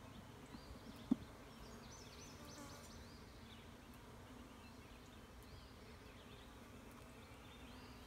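Honeybees buzzing as a faint, steady hum around an open nuc box, with one sharp knock about a second in.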